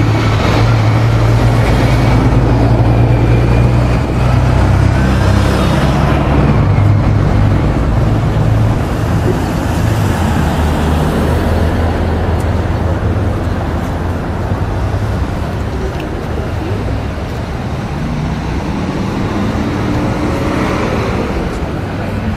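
City street traffic. A vehicle engine's low rumble dominates the first several seconds, then gives way to a steady wash of passing cars.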